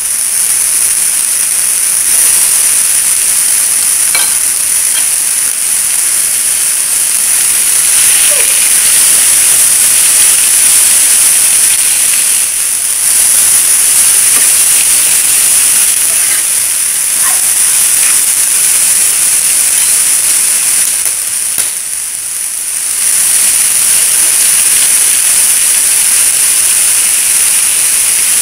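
Diced vegetables and mushrooms sizzling in hot oil in a nonstick frying pan while being stirred with a slotted spatula: a steady, loud sizzle with faint scraping ticks, dipping briefly twice.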